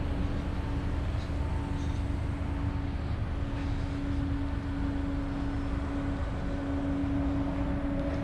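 BYD shuttle buses standing and running: a steady low vehicle rumble with a constant hum that sets in about half a second in.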